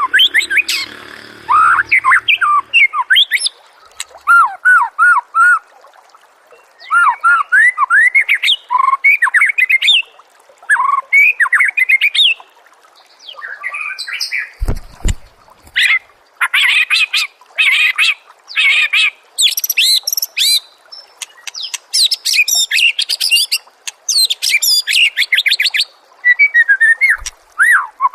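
White-rumped shama (murai batu) singing loudly in phrases of quick looping whistles, broken by short pauses, with fast high chattering trills in the second half. A brief low thump sounds about halfway through.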